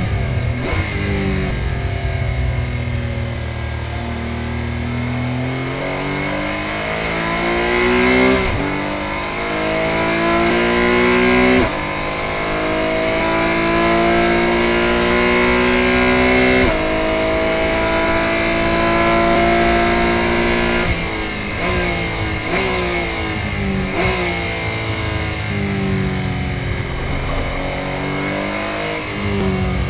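Porsche 718 Cayman GT4 Clubsport's naturally aspirated flat-six, heard from inside the cabin at full throttle, climbing in pitch through the gears with sharp drops at the upshifts. Near the end it falls away under braking as the car downshifts to second, with quick rev blips at each downshift.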